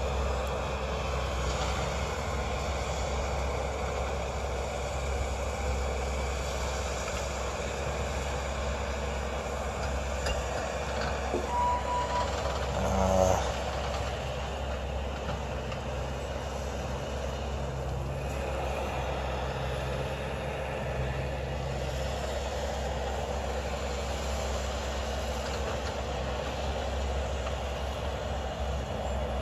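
Bobcat T590 compact track loader's diesel engine running steadily as the machine works brush at a distance. A short beep sounds a little before halfway, followed about a second later by a brief louder burst of machine noise.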